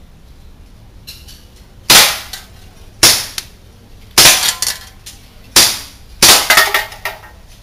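Gas blowback airsoft pistol, a WE TT33 Tokarev replica, fired five times in steady succession about a second apart. Each shot is a sharp pop with a short echo and smaller trailing clacks.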